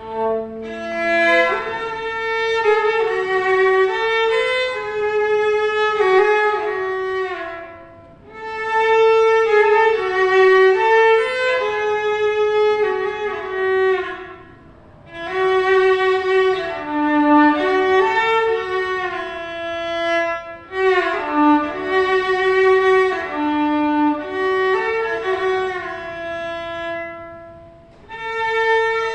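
Bowed fiddle playing a solo melody in phrases of about six to seven seconds, each swelling and then dipping briefly before the next.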